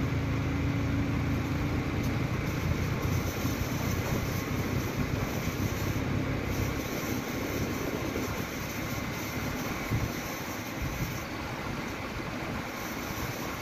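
Motorcycle riding at speed: a steady rush of wind and road noise over the microphone, with the bike's engine running low underneath. About halfway through the engine note drops away, leaving only wind and tyre noise.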